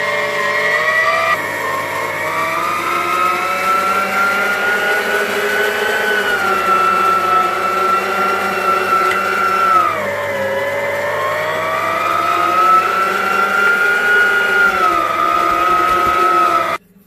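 Electric meat grinder running under load as it grinds beef mince. Its motor whine sags in pitch and recovers as the meat feeds through, then stops abruptly near the end.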